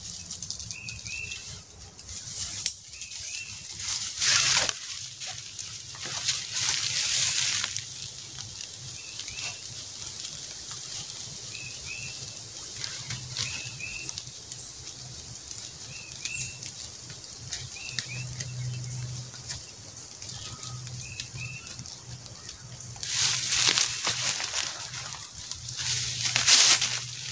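Nylon tent fabric rustling and flapping as it is handled, in several loud bursts, the longest near the end. Between them a bird calls over and over in short paired chirps.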